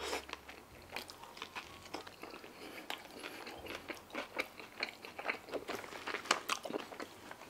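A person chewing a bite of beef brisket slider with barbecue sauce, pickles and coleslaw, close to the microphone: a run of soft, wet mouth clicks and smacks, irregular and unhurried.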